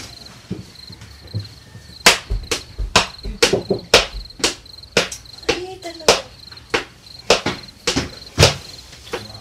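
Loud sharp bangs, about two a second and slightly uneven, starting about two seconds in like hammering heard through a wall. A cricket chirps steadily underneath.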